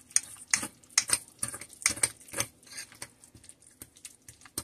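Metal utensil clinking and scraping against a ceramic bowl in quick, irregular strokes, about two a second, while mashing roasted garlic into butter and herbs.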